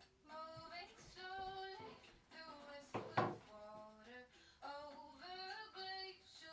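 Background song with a woman singing a held, gliding melody, with one short sharp knock about three seconds in.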